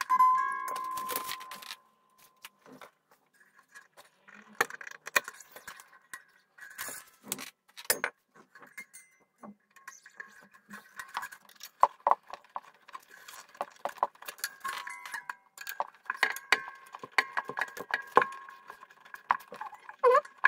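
Mandolin strings being wound on at the headstock with a string winder: irregular clicking and metallic clinking of the tuning machines and string ends, with strings ringing faintly as they are tensioned. A string rings out loudly over the first two seconds, and near the end a short twang rises in pitch as a string is tightened.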